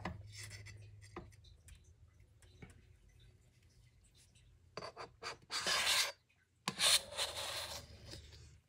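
Two loud stretches of rubbing, scraping noise in the second half, each about a second long, the first opening with a few short strokes, over a faint low hum.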